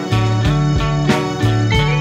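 Demo recording of a rock song: electric guitar, bass guitar and drums playing together, with drum hits at a steady beat.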